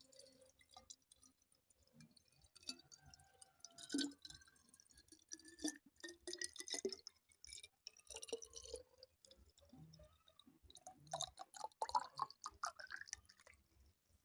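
Water poured into a glass, with small clinks and drips and a note that rises twice.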